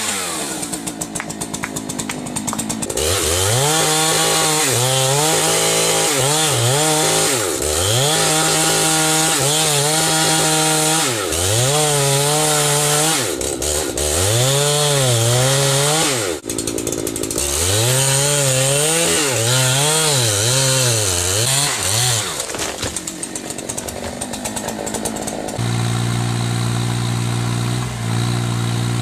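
Two-stroke chainsaw cutting into timber, its engine pitch dropping again and again as the chain bogs under load and climbing back as it frees. Near the end a steadier, lower engine sound takes over.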